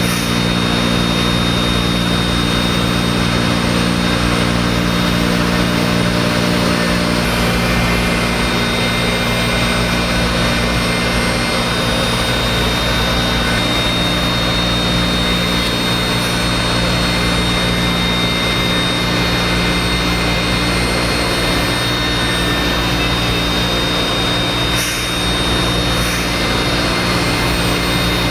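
Electric spindle of a 5-axis CNC router running steadily while its engraving bit carves a curved workpiece: a constant high whine over a steady low machine hum.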